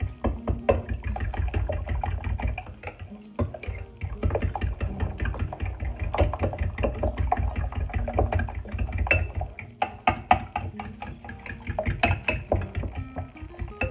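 A fork beating eggs in a bowl: rapid, irregular clinks and scrapes of the fork against the bowl, over background music.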